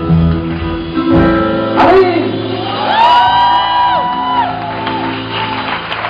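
Live pop band music over sustained chords, with a voice holding one high, arching sung or shouted note about three seconds in.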